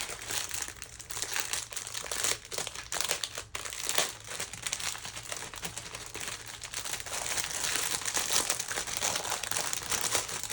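Plastic packaging crinkling continuously as it is handled, with many small crackles.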